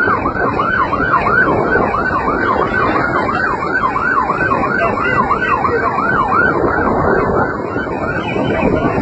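An electronic siren in a fast yelp, rising and falling about three times a second, over a steady background of noise. The siren stops about two-thirds of the way through.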